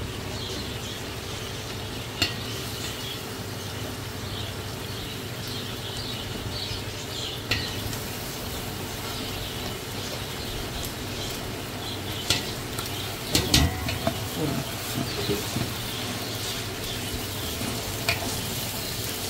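Oil sizzling with a steady hiss as food fries in a large aluminium pot, with a steel ladle clinking against the pot several times as it stirs.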